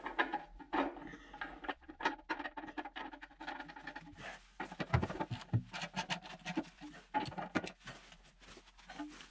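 Irregular clicks, knocks and scraping of gloved hands and tools working at the underside plate of a Yanmar mini-excavator, with a few heavier thuds about halfway through.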